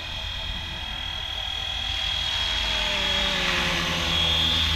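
FlyWing FW450L V3 electric RC helicopter in flight, a steady high whine from its rotors and motor that grows louder as it comes closer. A second tone slowly falls in pitch over the latter half.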